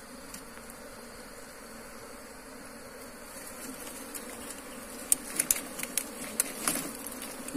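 Wild honeybees buzzing steadily around an opened nest during a comb harvest. From about halfway, a run of sharp clicks and crackles comes over the hum.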